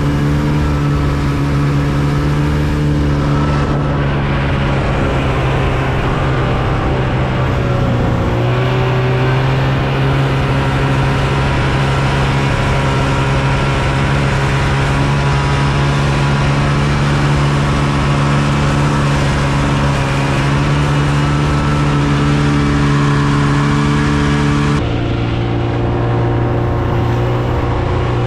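A vehicle engine running steadily, its note shifting about eight seconds in and again near the end.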